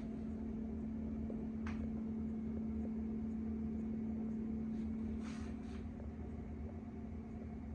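Short hisses of canned test smoke sprayed from an aerosol smoke tester: a quick one about two seconds in and two more around five seconds, over a steady low hum of a ceiling fan.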